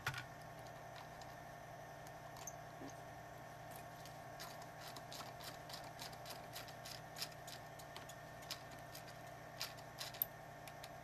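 Small ratchet clicking irregularly as it turns in the hex screws of a replacement pull starter on a Minari 180 paramotor engine, a sharper click at the start, over a steady low hum.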